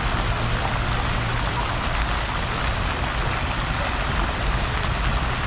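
Water from a plaza fountain splashing and falling in a steady, unbroken rush, with a constant low rumble beneath it.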